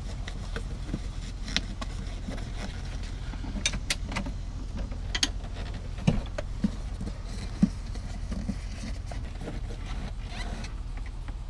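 Scattered clicks, knocks and rustles of hands fitting a cab seat back onto its base and straightening its fabric skirt, over a steady low hum. The sharpest knocks come a little past the middle.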